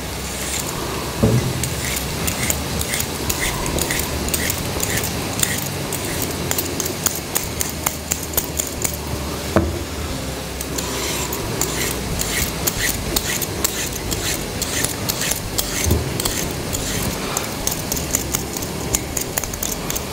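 Vegetable peeler scraping down a carrot in quick repeated strokes, about two a second, with a few sharp knocks, over the steady sizzle of onions frying in oil in a pot.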